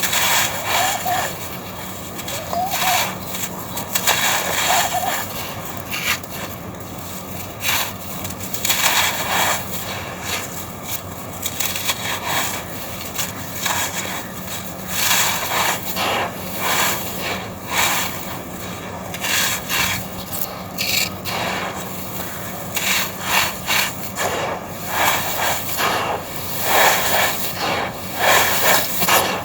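Dry, crumbly red sand-cement chunks being crushed and rubbed: gritty crunching and scraping in irregular bursts, some sharper crunches among them.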